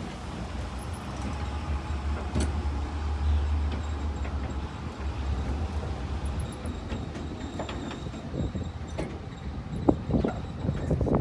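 A vehicle driving slowly over a dirt yard: a steady low engine and road rumble, heaviest in the first half, with a few scattered knocks and rattles.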